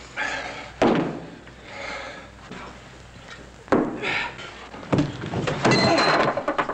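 Staged fistfight: heavy punch and body-slam thuds, one about a second in and two more a little past the middle, then a dense burst of scuffling and crashing near the end.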